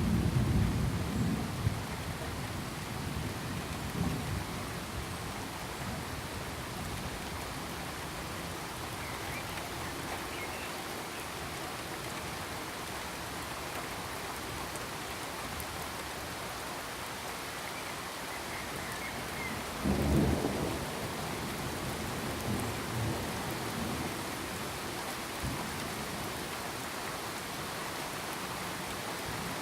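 Steady rain falling, with thunder rumbling at the start and again, loudest, about twenty seconds in, plus a few fainter rolls between.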